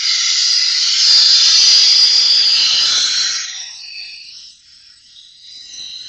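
Steel knife blade ground against a powered sharpening wheel: a loud, steady grinding hiss that starts abruptly, eases off about three and a half seconds in, then carries on quieter.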